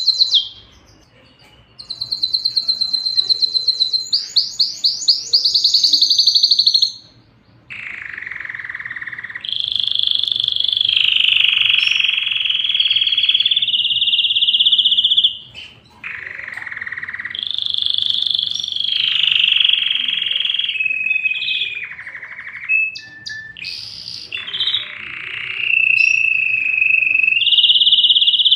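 Domestic canary singing a long song of fast repeated-note rolls and high trills, breaking off briefly about a second in and twice more along the way.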